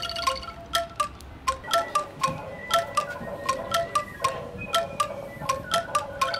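A chiming tune of bell-like struck notes. A held chord gives way, about half a second in, to separate notes at roughly three or four a second, and the held chord comes back at the end.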